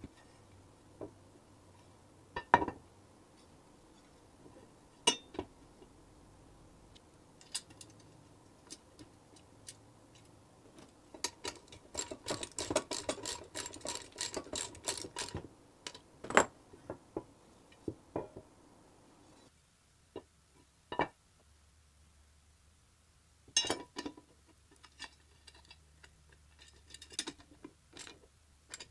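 Scattered clinks and knocks of metal parts and tools being handled during the repair of a bench grinder, with a dense run of rapid clicking and rattling from about 11 to 16 seconds in.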